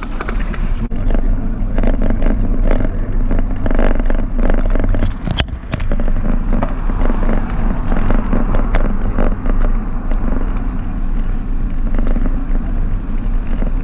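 Bicycle riding along a city street, heard from a camera mounted on the bike: a steady low rumble of wind and road noise, with frequent sharp clicks and rattles as the bike jolts over the pavement.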